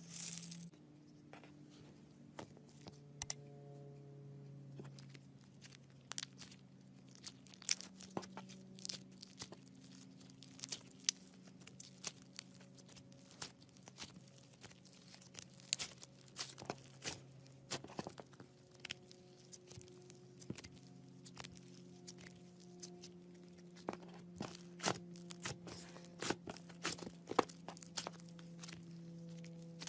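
Slime being squeezed and stretched by hand: irregular sticky clicks, crackles and small pops, several a second.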